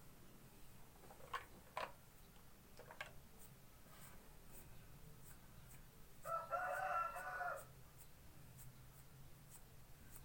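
A rooster crowing once, a held two-tone call about a second and a half long, roughly two-thirds of the way in. There are a few short sharp clicks earlier.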